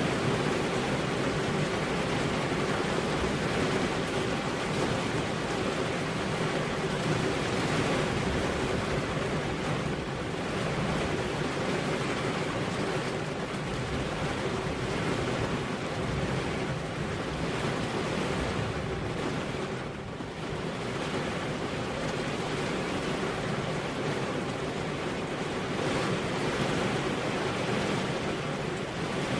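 Steady rain with wind: an even rushing noise that eases briefly about two-thirds of the way through.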